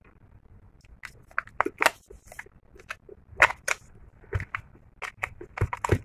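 Plastic housing of a Jio Phone F220B being pried apart with a thin tool: an irregular string of sharp clicks and snaps as the case clips let go, the loudest about three and a half seconds in and near the end.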